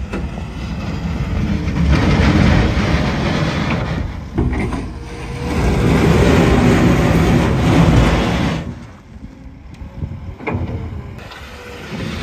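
Telehandler working its bucket, the steel edge scraping soil across a concrete pad while its diesel engine runs. The scraping swells loud twice and eases off in the last few seconds.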